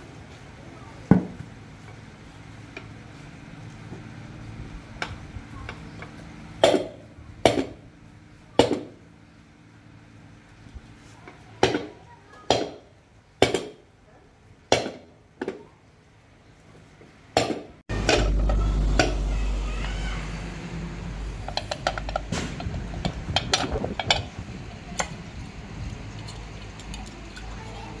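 Metal parts of a ceiling fan clinking and knocking as they are handled during repair, about nine separate knocks. About two-thirds of the way in, a steady low rumble starts suddenly under denser small clicks and clatter.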